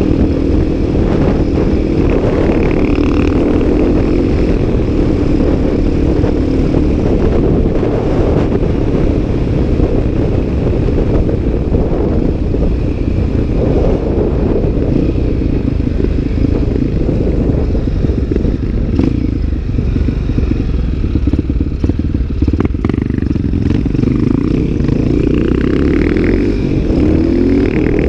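A supermoto's engine running at road speed, heavily mixed with wind rush on the microphone. The engine note rises near the start and again near the end as the bike accelerates.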